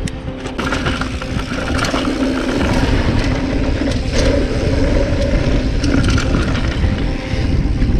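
Yeti SB95 mountain bike rolling fast down a dry, loose dirt trail: a steady rumble of tyres on dirt and wind on the chest-mounted camera, with scattered clicks and rattles from gravel and the bike. It grows a little louder after two or three seconds as speed builds.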